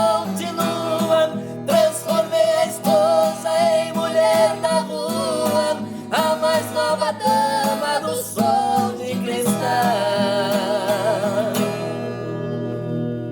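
A Brazilian country (sertanejo) song with acoustic guitar accompaniment and a sung melody. It closes on a long held note with vibrato, starting about two-thirds of the way in.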